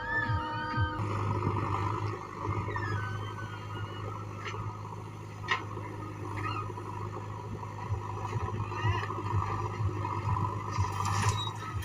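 Heavy diesel engine running steadily at a loading site, with a few short clicks.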